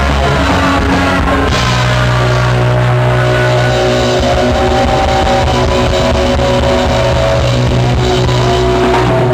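Rock band playing live: distorted electric guitars holding chords with a bending lead line over bass and drums, no vocals.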